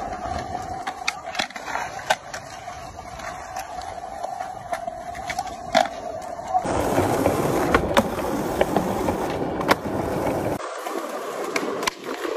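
Skateboard rolling on stone paving, with repeated sharp clacks of the board snapping and landing during tricks. A steady hum runs under the first half, and voices murmur in the background.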